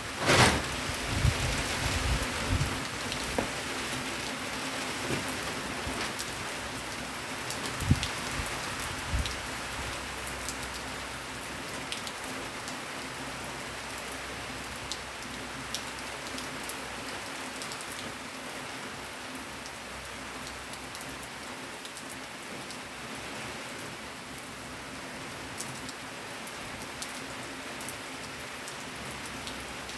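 Steady rainfall with scattered close drips ticking. There is one sharp thump about half a second in and a few low bumps over the first few seconds, after which the rain hiss runs on evenly.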